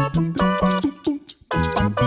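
Background music: a bouncy tune of short, evenly paced notes, with a brief pause shortly before the end.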